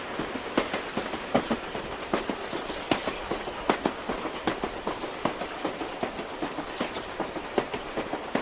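Train carriage running along the track, heard from inside the coach: a steady rushing rumble with a quick, uneven clatter of wheel knocks over the rail joints.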